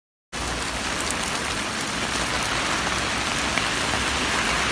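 Typhoon rain and wind, a steady rushing hiss with a low rumble that starts suddenly a moment in.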